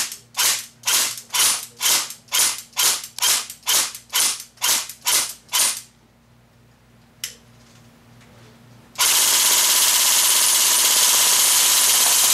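Echo 1 Wolverine AK-74 airsoft electric gun firing, its mechanical blowback bolt cycling with each shot. It fires single shots about two a second for the first six seconds, gives a lone click about seven seconds in, then fires a continuous full-auto burst from about nine seconds in.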